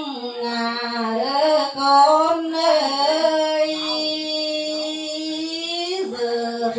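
A single voice singing a slow lượn folk melody of the Tày people, with notes that bend in pitch and one long held note from about three to six seconds in.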